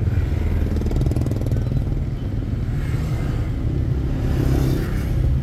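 Toyota Wigo's three-cylinder engine idling with a steady low rumble while cylinder 3 misfires from an injector circuit fault (code P0203).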